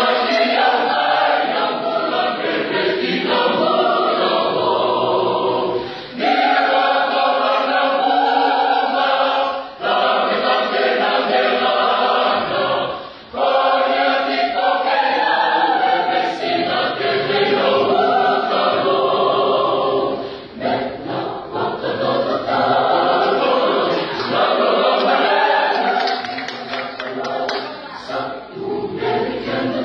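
Mixed choir of young men and women singing a Fijian hymn unaccompanied, in long phrases with brief breaks for breath between them.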